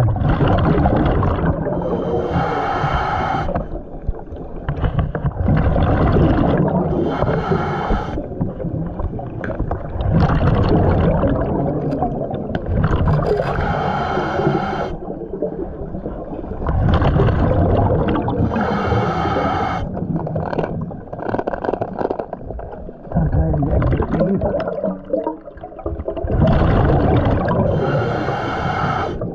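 Scuba diver breathing through a regulator underwater: a cycle of breaths every two to three seconds, each exhale a bubbling rumble.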